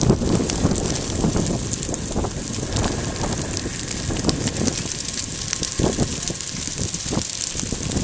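Grass and brush burning in a prescribed fire, with many sharp irregular crackles over a steady rushing noise. Wind buffets the microphone throughout.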